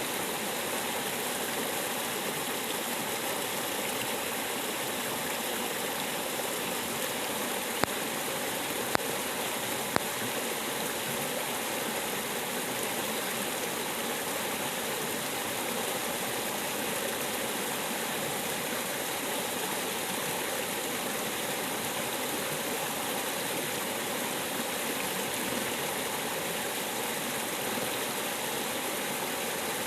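River water flowing steadily. Three short clicks come about a second apart some eight seconds in.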